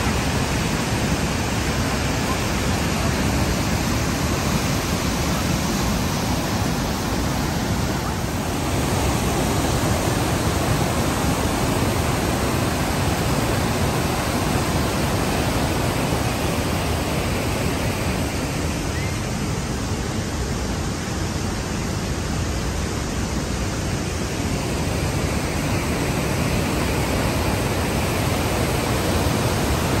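Steady rushing of a large waterfall and rapids, white water pouring over wide rock ledges.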